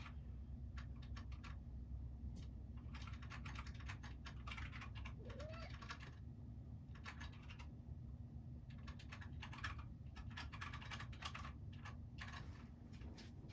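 Faint, irregular clicking and ticking in quick clusters, over a low steady hum.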